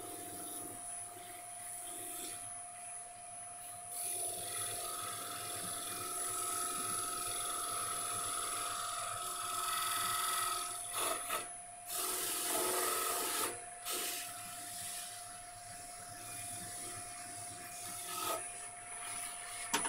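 Wood lathe running at a steady hum while the spinning turned wooden plate is buffed, the rubbing against the waxed wood swelling and fading; the lathe's hum stops near the end.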